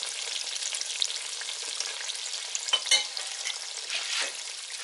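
Coated halloumi fries frying in hot oil: a steady sizzle dotted with small crackling pops, with one louder sharp sound about three seconds in.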